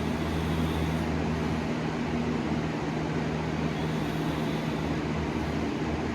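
Steady machine hum: a constant low drone over an even hiss, with no rise and fall of breathing.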